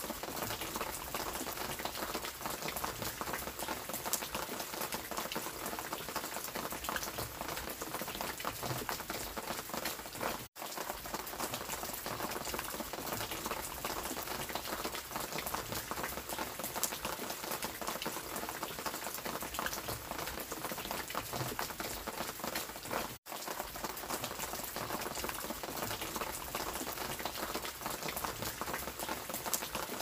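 Heavy rain falling steadily: a dense hiss made of countless individual raindrop hits. The sound cuts out for an instant twice.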